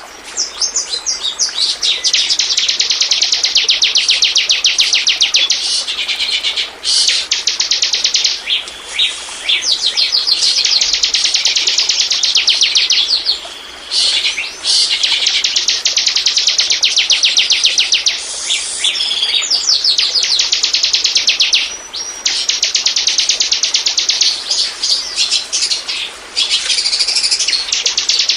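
Ciblek (bar-winged prinia) song: long runs of rapid, high, chattering notes, repeated in phrases several seconds long with short breaks between them.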